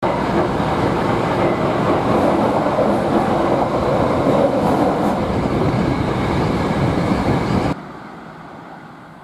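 Passing train: steady, loud wheel-on-rail running noise that begins abruptly and cuts off sharply near the end, leaving only faint outdoor background.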